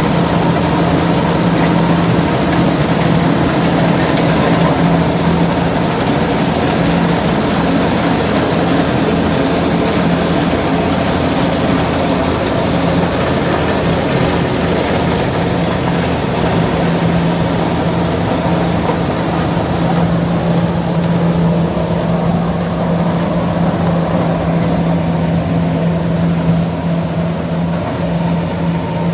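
Engine of a farm harvesting machine running steadily at a constant speed, a low even drone that holds throughout.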